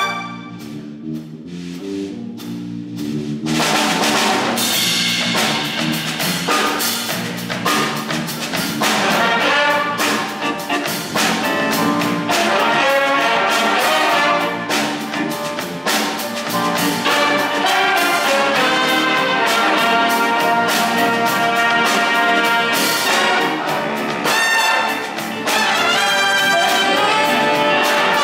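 Live jazz big band playing a funk tune: trumpets, trombones and saxophones over piano, guitar and drums. It is softer for the first few seconds, then the full horn section comes in, with a short drop near the end.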